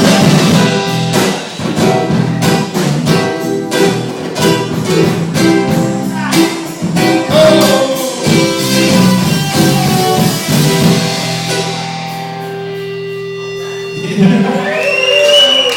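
Band playing a cover with guitar and drums, ending on a held chord about twelve seconds in. Whoops and cheering start near the end.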